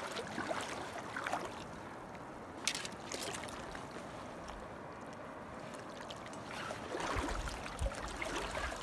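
Shallow creek water running and trickling over rocks, with a couple of brief knocks and some low rumble near the end.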